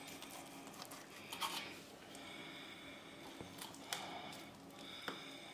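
Faint scraping and a few light taps of a small knife cutting strips through a soft, set jaggery-and-ghee mixture in a steel plate, the blade now and then touching the metal.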